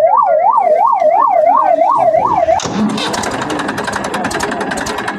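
Electronic siren warbling quickly up and down, about three rises a second, that cuts off suddenly about two and a half seconds in. It gives way to a whirring, rattling noise with rapid, even clicks.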